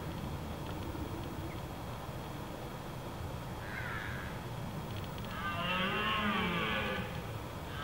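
Red deer stag roaring once in the rut, a long pitched call of about a second and a half that starts about five seconds in, with a shorter, fainter call a little before it.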